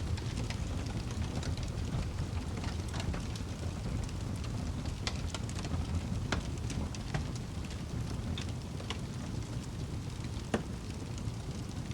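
Wood fire burning in a fireplace: a steady low rumble of the flames with frequent sharp crackles and pops, one louder pop near the end.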